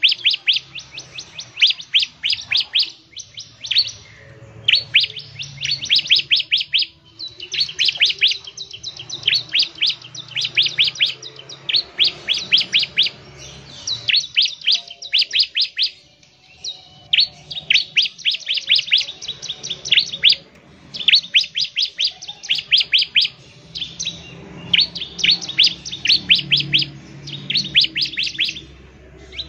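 Bar-winged prinia (ciblek) singing in rapid bursts of sharp, high chips, several a second. Each burst lasts a second or two, and the bursts repeat with short pauses between them.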